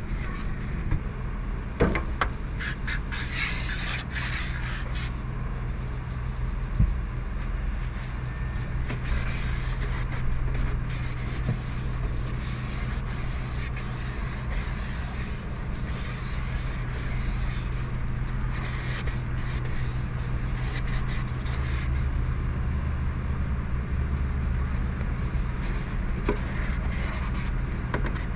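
A rag rubbing and scrubbing the inside of a Coleman Mach rooftop RV air conditioner's sheet-metal blower housing, wiping out built-up dirt in irregular strokes. A steady low mechanical hum runs underneath.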